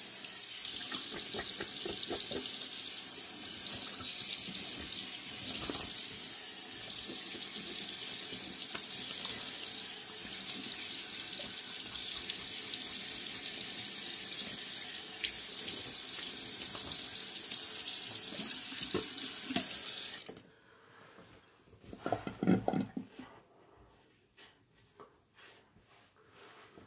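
Water running steadily from a bathroom tap into the sink while the face is rinsed, shut off suddenly about twenty seconds in. A short muffled burst of noise follows about two seconds later.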